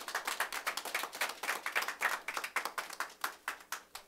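A small group of people clapping by hand, a few seconds of applause that stops near the end.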